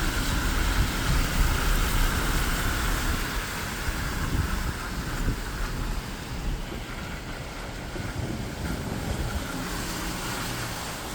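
Car driving on a wet road in stormy wind, heard from inside the cabin: a steady hiss of tyres and wind over a low, uneven rumble.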